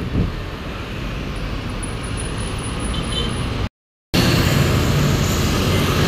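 Road traffic: cars and motorbikes passing on a multi-lane city road, a steady rush of engines and tyres. It cuts out into a brief silence a little before four seconds in, then comes back louder, with motorbike engines closer by.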